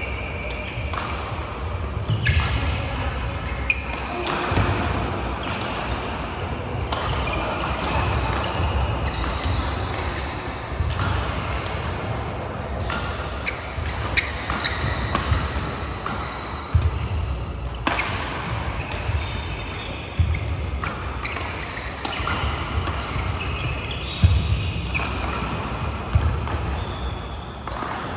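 Badminton play in a large multi-court hall: sharp racket strikes on shuttlecocks, players' footfalls and shoe squeaks on the court mats, with rallies on neighbouring courts mixing in and ringing in the hall.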